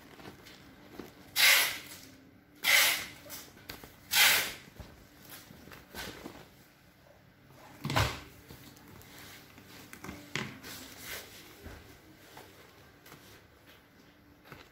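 Thin vinyl of a deflated Intex inflatable being handled and unfolded: three loud crinkling rustles in the first few seconds, another with a soft thump about eight seconds in, and quieter rustling between.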